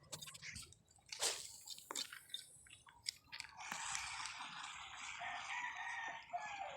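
Water splashing and dripping in several short sharp bursts, then a steady hiss from about halfway.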